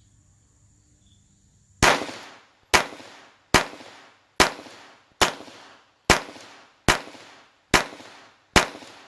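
Glock 44 .22LR pistol fired in a steady string of nine shots, a little under one a second, each shot with a short echoing tail. They begin about two seconds in.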